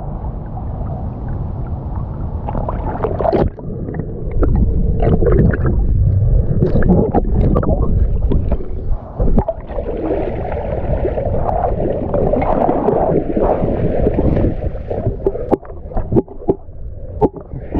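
Water sloshing and gurgling around a camera held at the river's surface, muffled while it dips under, with a dense low rumble and many small knocks and splashes, more of them near the end.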